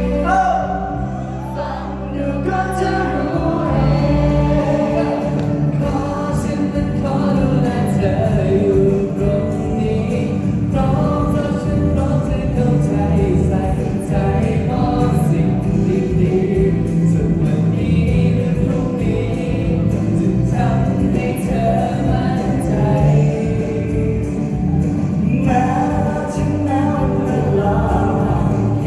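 Two men singing a pop song live into microphones over a recorded backing track, amplified through a hall's sound system, taking turns on the vocal line.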